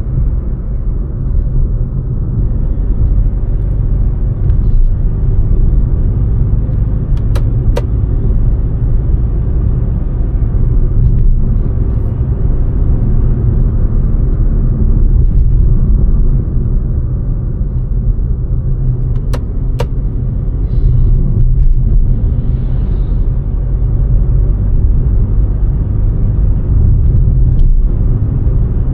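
Maruti Suzuki Fronx on the move: a steady low rumble of road and engine noise, as heard in the cabin. Two pairs of sharp clicks break through, one about a third of the way in and one about two thirds of the way in.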